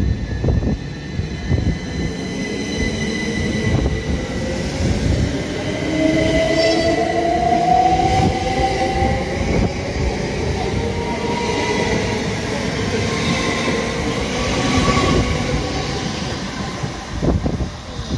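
A c2c Class 357 Electrostar electric multiple unit accelerating past along the platform: a dense rumble of wheels on rail, with a whine from its traction motors that rises steadily in pitch as it gathers speed. Sharp wheel thumps come near the start and again about 17 seconds in as the last coaches pass.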